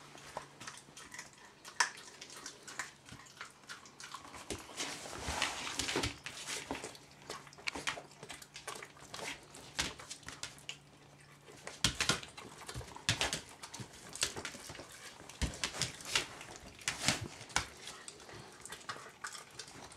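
Puppy chewing and crunching a chicken wing held out in tongs: a run of irregular wet crunches, smacks and clicks from her jaws, busier from about four seconds in.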